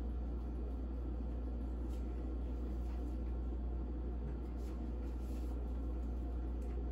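A steady low hum of room noise, with a few faint soft touches as whipped topping is spread over the shortcake by hand.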